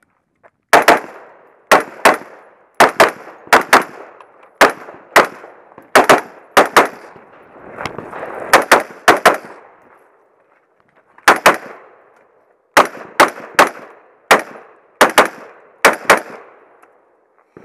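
AR-style carbine firing rapid shots, about two dozen in all, mostly as quick pairs, with a pause of about a second and a half a little past the middle.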